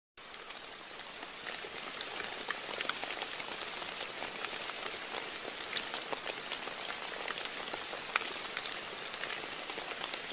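Steady rain patter, with many small drop ticks over an even hiss.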